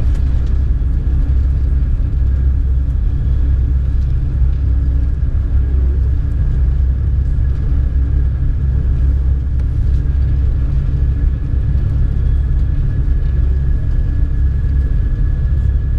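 Steady low rumble of a high-speed passenger train heard inside the coach while it runs, with a faint, even high whine over it.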